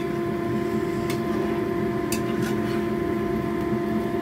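A steady mechanical hum, with a few sharp clicks of a slotted spatula against a non-stick pan as eggs in thick chilli sauce are stirred.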